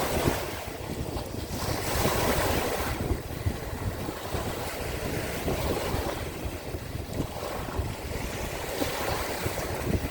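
Waves of the Sea of Azov breaking and washing on the shore, the surf swelling in a rush every few seconds, with wind buffeting the microphone.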